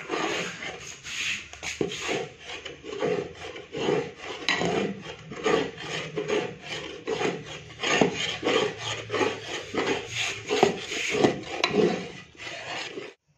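Metal ladle scraping and stirring thick, fully cooked rice kheer in a metal pot, a rasping stroke about twice a second. The sound cuts off suddenly near the end.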